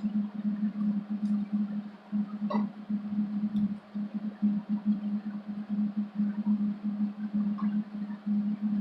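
Gas-shielded wire welder arc buzzing and crackling with an irregular, pulsing hum as the slide hammer's tip is welded onto the dented steel body panel.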